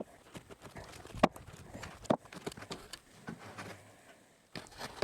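Irregular knocks and light clatter of odds and ends being handled and set down, the sharpest knocks about a second and two seconds in.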